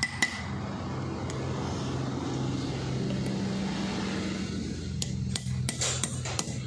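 Hammer tapping a 13 mm socket down over a valve stem to seat the valve stem seal on a Mahindra 265 DI cylinder head, metal on metal: a few quick taps at the start, then a run of taps again from about five seconds in. In between, a steady low engine hum.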